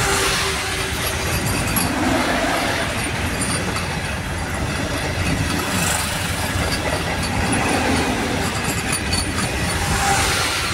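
Vande Bharat Express electric multiple-unit coaches rolling past close by at low speed as the train nears a station. It makes a steady rumble of wheels on rails, with scattered light clicks.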